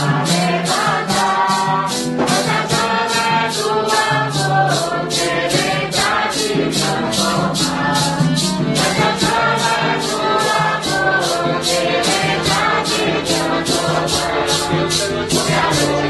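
Group of voices singing a Santo Daime hymn in unison, with maracas shaken in a steady beat of about three strokes a second.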